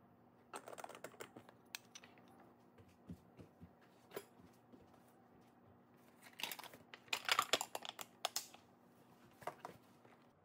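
Faint clicks and clatters of plastic and glass lunch containers and their lids being handled on a countertop, in several short clusters, the busiest about seven to eight seconds in.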